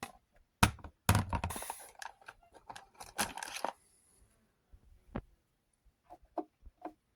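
Handling noises: a few knocks and thunks with rustling, heaviest about a second in and again around three seconds, then scattered light clicks.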